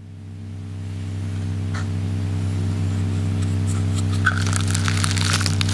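A low, steady hum fades in over the first couple of seconds. A dense crackling builds over it, growing thicker toward the end.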